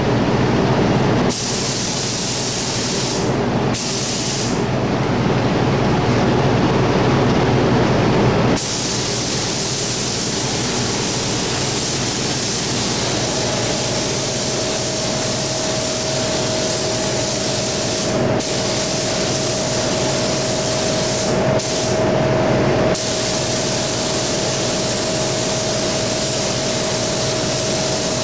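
A gravity-feed GTI spray gun with a 1.5 mm tip hisses in long bursts, stopping and starting as the trigger is pulled and released while it lays on single-stage paint. Under it runs the steady drone of a paint-booth exhaust fan.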